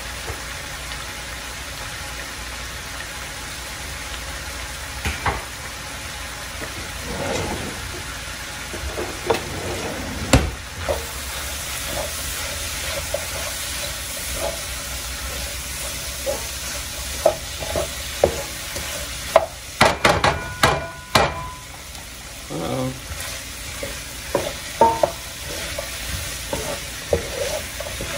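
Chopped onion, celery, carrot and pepper with tomato paste sizzling in a large wok-style pan while a wooden spoon stirs and scrapes through them. There is a quick run of sharp knocks about twenty seconds in.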